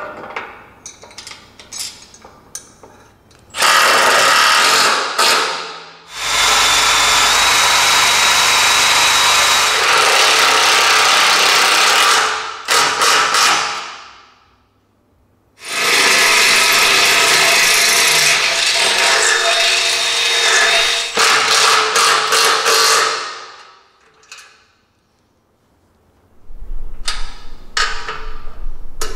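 Power drill boring holes through the steel shock perch of a rear axle housing, in three long runs with pauses between them. Near the end a hand ratchet clicks rapidly as bolts are tightened.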